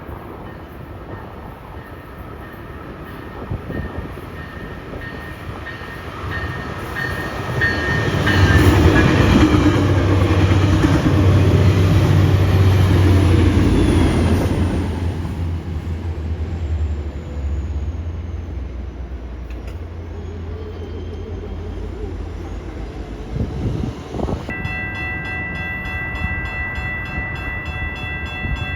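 A Tri-Rail diesel commuter train passing: the engine's low drone and the rumble of the wheels build to their loudest a few seconds in, hold, then slowly fade. Near the end a ringing bell with a steady, even pulse starts suddenly.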